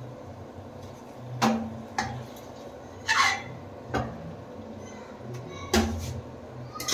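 Metal ladle stirring thick curry in a pressure cooker, knocking against the pot's sides four times with a short scrape about three seconds in.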